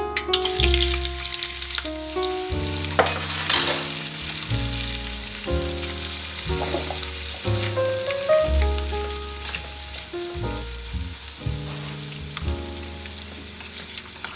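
Hot oil sizzling as small battered tempura pieces deep-fry, the sizzle flaring briefly about three seconds in. Background music with slow bass notes and chords plays along.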